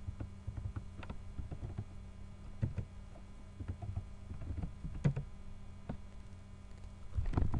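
Typing on a computer keyboard: a run of irregular key clicks, entering a search, over a steady low hum.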